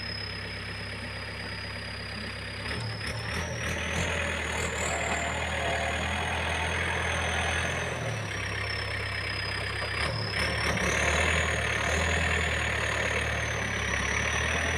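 Yanmar EF514T tractor's diesel engine running steadily under load as it pulls a disc harrow through wet soil, growing louder about three seconds in. A thin, high whine wavers up and down in pitch over the engine sound.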